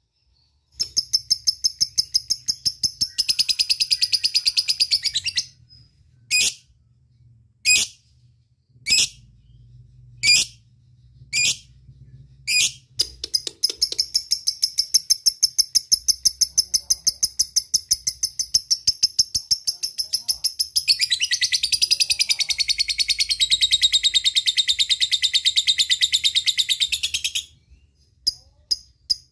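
Lovebird singing its long 'ngekek' chatter: long runs of rapid, high-pitched chirps repeated about ten times a second, broken by a string of single sharp chirps. The last run grows fuller about three quarters of the way through, then stops abruptly.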